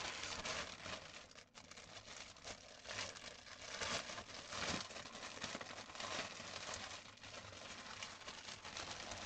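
Plastic packaging bag of a cross stitch kit being opened and handled: continuous crinkling and rustling with many small irregular crackles.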